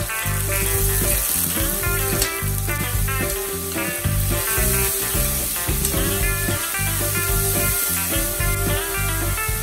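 Onions and carrot strips sizzling in hot oil in a wok as they are stirred with a metal ladle, under steady background music.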